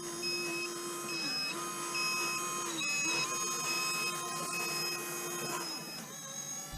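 Whine of a small electric motor and gearbox on a radio-controlled model, holding a steady pitch with several brief dips.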